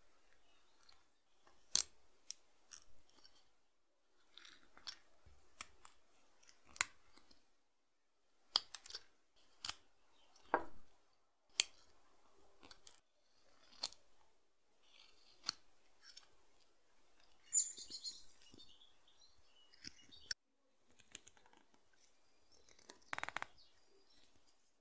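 Small handmade whittling knife cutting into dry branch wood: a run of short, crisp snicks and scrapes as chips are sliced off, about one a second with pauses, and a longer scraping cut near the end.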